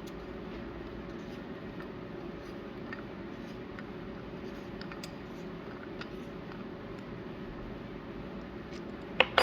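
Faint clicks and handling noises of inflatable-boat valve parts being fitted and screwed together, over a steady background hum; near the end, two or three sharp clicks.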